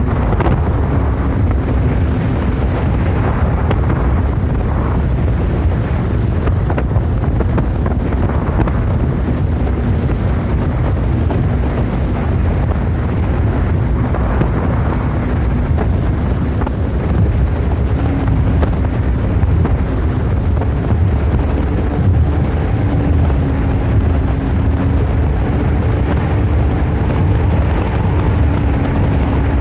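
Wind buffeting the microphone on a small boat under way over choppy water, a loud steady low rumble. A faint steady hum runs underneath and sits a little higher in pitch in the second half.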